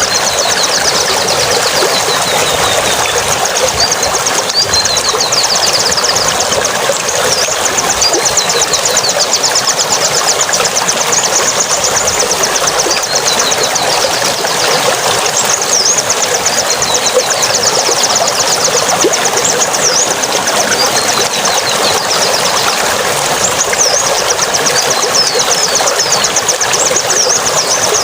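Steady rush of running water, with high, fast bird trills and short chirps repeating over it.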